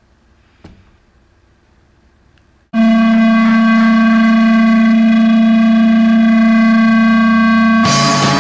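Near silence, then a sudden loud, steady buzzy synthesizer tone held for about five seconds, a lower tone joining under it; loud music starts near the end.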